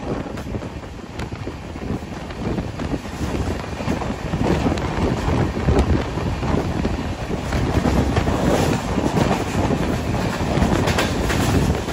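Indian Railways express train running on the tracks, heard from aboard, with wind rushing over the microphone. The rumble grows louder about four seconds in.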